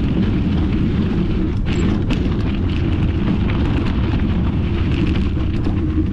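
Wind buffeting the microphone of an action camera on a mountain bike descending a gravel trail, a loud steady low rumble mixed with tyre noise on the loose surface. A couple of sharp clicks come about two seconds in.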